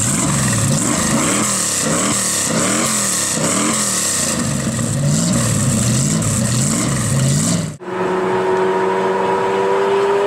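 A supercar engine being revved over and over, its pitch climbing and dropping about once a second. Near the end the sound cuts to another car accelerating, its engine note rising steadily.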